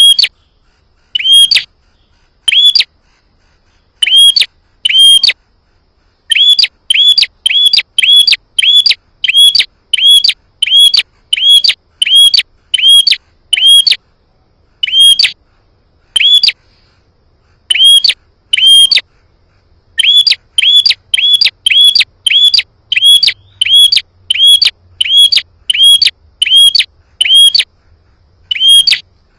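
Prenjak (prinia) calling: loud, sharp, high chirps of the same note, about two a second in long runs with a few short breaks. This is a lure call meant to provoke a prenjak into answering.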